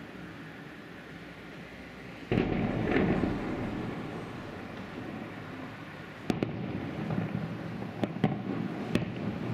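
Aerial fireworks salute: a sudden heavy boom about two seconds in that rumbles away over the next couple of seconds, then several sharp single bangs in the second half.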